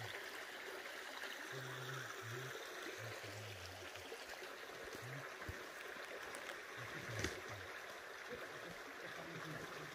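Steady, even rushing of flowing water, as from a small stream, heard faintly.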